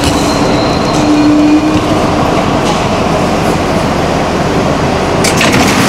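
R62A subway car pulling into a station, with a steady loud rumble of wheels on rail and traction motors. A brief low tone sounds in the first second or so, and a short burst of hiss comes about five seconds in.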